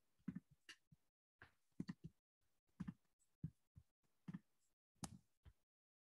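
Near silence broken by faint, irregular soft knocks and clicks, more than a dozen of them, a few each second.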